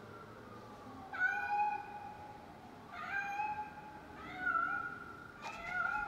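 A kitten meowing four times, high and pitched, about once every second and a half.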